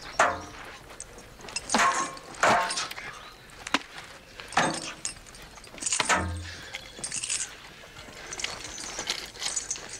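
Swords clashing in a fight: a series of irregular sharp metal clangs, each with a bright ringing tail.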